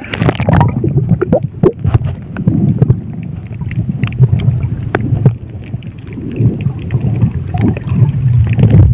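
Muffled underwater sound from a submerged camera in shallow sea: a low rumble of moving water, dotted with scattered clicks and knocks.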